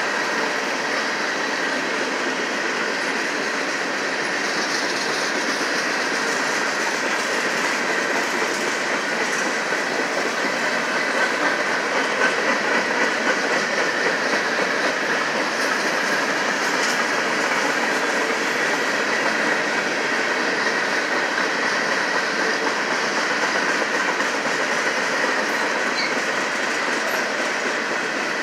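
Covered hopper cars of a mixed grain freight train rolling past, with a steady noise of steel wheels on the rails.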